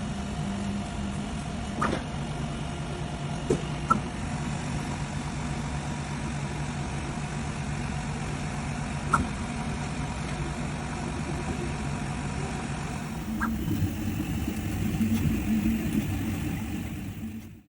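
A machine running with a steady low hum and a few faint clicks. It gets louder and rougher near the end, then fades out.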